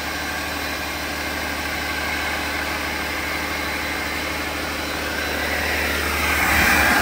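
2011 Cummins ISC 8.3-litre inline-six diesel engine idling steadily. Near the end it gets louder and hissier as it is heard closer to the turbocharger.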